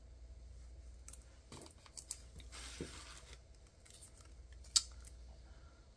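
Faint handling sounds of a roll of PET tape being turned over in the hands: scattered small clicks and a soft rustle around the middle, with one sharp click near the end.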